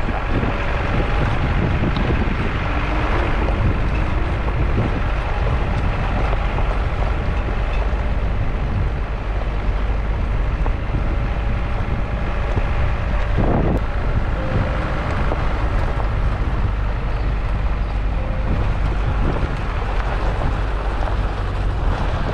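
Wind noise on a GoPro Hero 8's microphone: a loud, steady low rumble with a rush of hiss above it.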